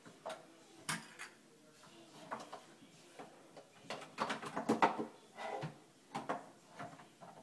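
Scattered light knocks and clicks of plastic toy-kitchen pieces being handled: small doors opening and shutting and toy dishes clattering, with a busier run of clatter about four to five seconds in.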